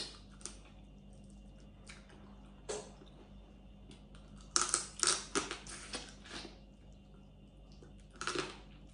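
Close-up eating sounds: fingers picking at cooked blue crab and a mouth chewing, with scattered wet clicks, crunches and lip smacks, busiest about halfway through and again near the end.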